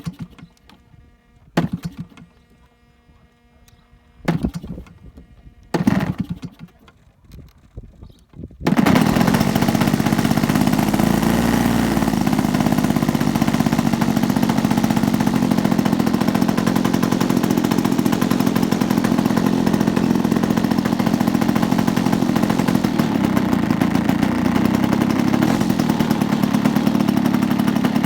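Gasoline two-stroke engine of a giant-scale RC aerobatic airplane being started: it fires briefly four times in the first six seconds, catches about eight and a half seconds in, then runs steadily.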